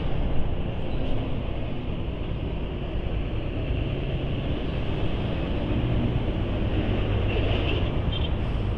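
Steady motor-vehicle running noise: a continuous rumble with a low engine drone.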